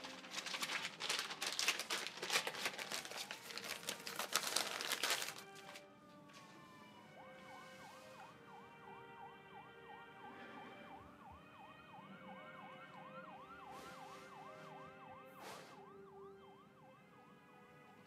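Paper rustling and handling noise for about five seconds. Then it goes faint: steady held notes with a rising-and-falling wail that repeats about twice a second, like a distant siren.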